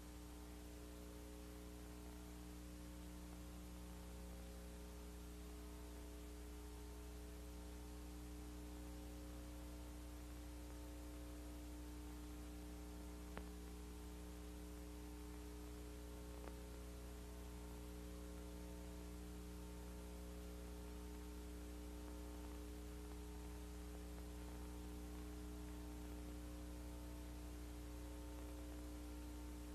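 Steady electrical mains hum with a faint hiss behind it, and two small clicks about halfway through.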